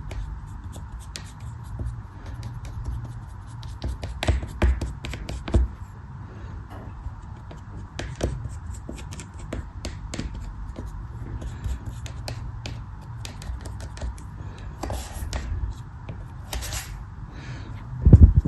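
Many small crisp crackles and scrapes of a blade cutting and crumbling a soft, crumbly material, with a loud low thump shortly before the end, over a steady low hum.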